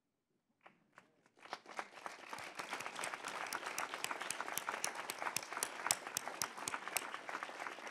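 Large audience applauding: a few scattered claps about a second in, then the applause builds quickly into steady clapping.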